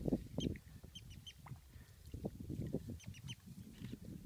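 Birds calling in short high chirps, repeated many times, over a low, irregular rustling and knocking that is loudest about half a second in.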